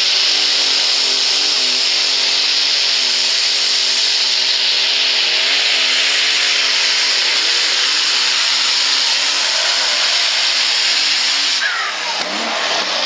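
Fendt superstock pulling tractor's diesel engine running flat out while dragging the weight sled, its pitch wavering up and down as the load and wheel grip change. Near the end the engine comes off the throttle and its pitch falls away as the pull finishes.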